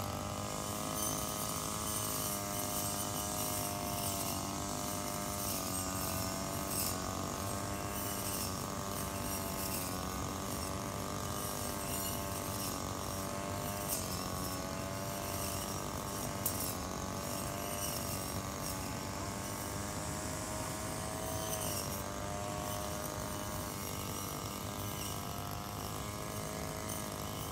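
Engine-powered brushcutter running continuously while cutting tall grass, its engine pitch wavering up and down with the load, with a few brief sharp ticks.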